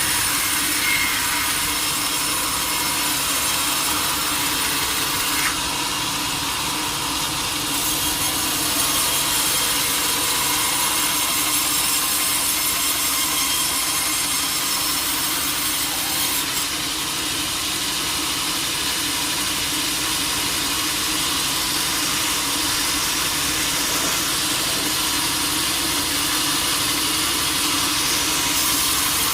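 Sawmill saw cutting through a large teak log: a steady, continuous cutting hiss strongest in the high range, over a steady low hum.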